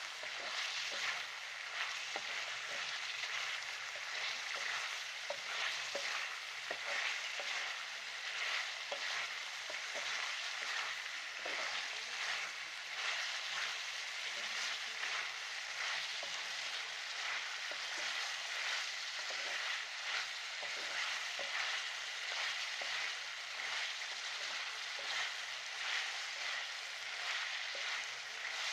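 Chicken in cream sizzling steadily in a karahi while it is stirred, with frequent small scrapes and clicks. The cream is being fried down (bhuna) until it dries.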